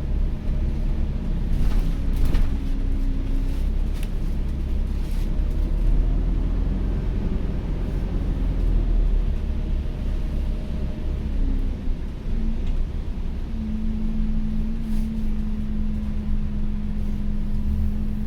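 Interior of an ADL Enviro400H City hybrid double-decker bus under way: a steady low rumble from the drive and road, with a few light rattles. A steady hum sets in about two-thirds of the way through and holds.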